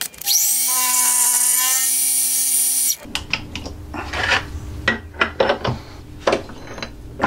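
Milling machine spindle starting up with a rising whine and running steadily, then stopping abruptly about three seconds in. Irregular clicks and knocks follow as the workpiece is handled in the vise.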